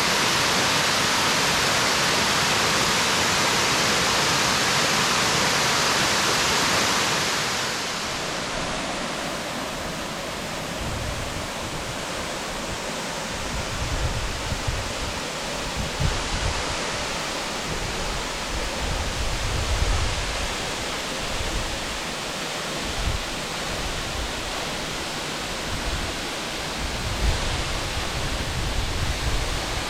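Waterfall's steady rushing noise. It is louder and brighter for about the first seven seconds, then drops a little, with irregular low rumbles from about ten seconds in.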